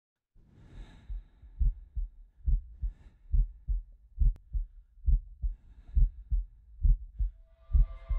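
Heartbeat sound effect: low double thumps, lub-dub, evenly paced at about 70 beats a minute. Near the end a steady humming tone fades in beneath it.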